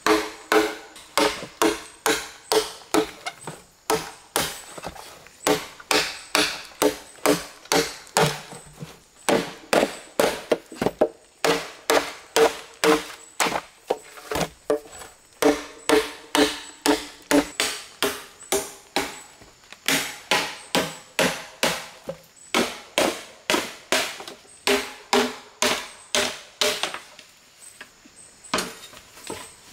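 Machete chopping green bamboo: a run of sharp strokes, about two to three a second, each with a hollow ringing tone from the bamboo tube, broken by a few short pauses. The chopping stops shortly before the end.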